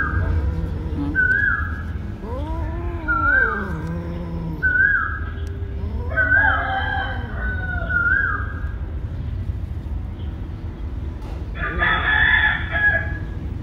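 Animal calls: a short, hooked call repeating about every second and a half, with several longer rising-and-falling calls among them and a louder, harsher call near the end, over a steady low rumble.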